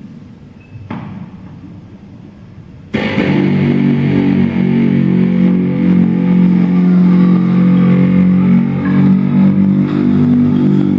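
Amplified electric guitar: a faint, fading tone for about three seconds, then a sudden loud entry of a sustained droning chord of many stacked notes that holds on.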